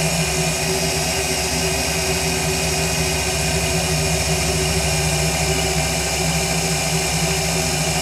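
Cordless drill running at a steady speed, boring a hole into the steel agitator shaft of a tub washing machine, its motor hum holding one even pitch throughout.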